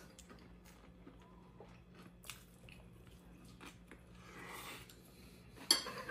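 A person chewing crunchy Korean-style fried chicken, with faint scattered crunches and mouth clicks over a steady low hum, and one sharp click near the end.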